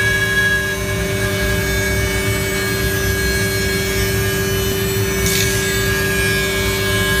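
Freedom Machine Tool Patriot CNC router cutting a circle through 8/4 white oak: a steady spindle whine with several fixed tones over a low rumble of the bit in the wood, with a brief hiss about five seconds in.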